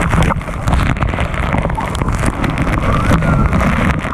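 Heavy waterfall spray pouring down onto the camera and people: a loud, steady rush of falling water and splashing. Faint high wavering sounds show here and there through it.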